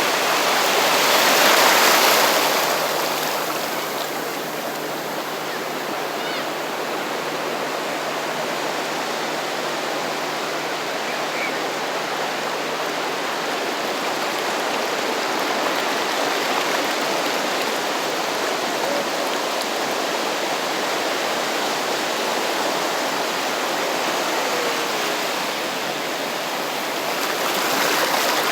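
Gentle surf on a sandy beach: a steady rush of small waves breaking and washing up the shore, with a louder wave swelling about two seconds in and another near the end.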